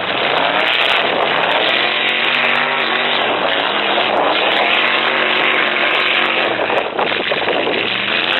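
Full-size demolition derby truck engines revving hard and loud. The pitch climbs in the first couple of seconds, holds high, then drops near the end.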